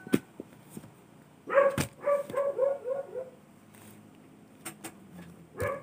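A small dog yapping in a quick run of about five short high-pitched yaps, about 1.5 seconds in, with one more yap near the end. A few sharp clicks sound between the yaps.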